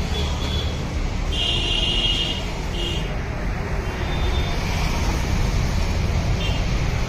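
Steady street traffic rumble, with several short high-pitched vehicle horn toots breaking in through it.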